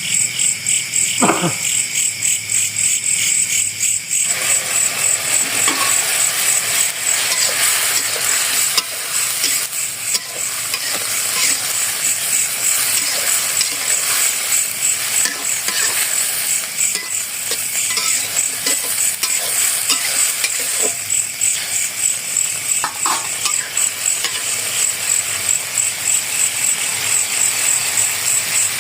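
Food sizzling as it fries in a pan, starting about four seconds in, with crickets chirping steadily throughout.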